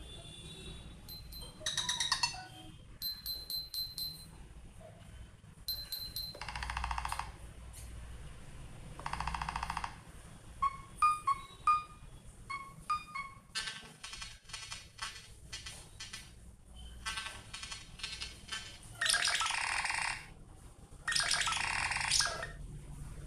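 Nothing Phone (1) playing one built-in ringtone after another through its loudspeaker. It is a string of short beep, chime and click patterns, with a new one every second or two.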